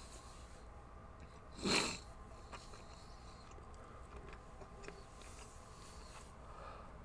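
A single short, sharp sniff through a congested nose about two seconds in, amid faint chewing.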